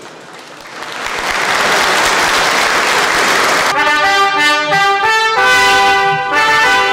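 Applause from a large crowd swells up, then about halfway through a brass band starts playing, with trumpets and trombones holding chords that change note by note.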